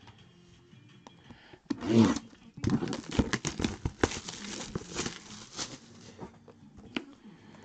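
Shrink-wrapped cardboard box being picked up and turned over, its plastic wrap crinkling and rustling with many small clicks; the loudest handling noise comes about two seconds in, and it fades out after about six seconds.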